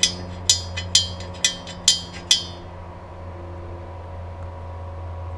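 Steel parts of an AK rivet-pressing jig clinking together: six sharp metallic clicks about half a second apart, over a steady low hum.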